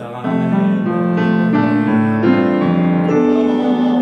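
Griffa grand piano played from the top of a piece: a melody over chords, the notes changing about every half second.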